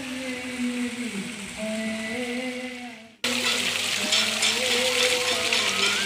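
A voice sings a slow melody with long held notes. About three seconds in it cuts off abruptly, and the splashing of a garden fountain comes in, with the sung melody carrying on over the water.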